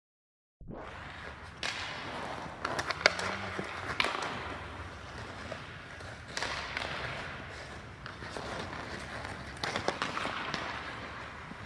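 Ice hockey practice: a steady scrape of skates on ice, with sharp cracks of sticks striking pucks every second or few, the loudest about three seconds in.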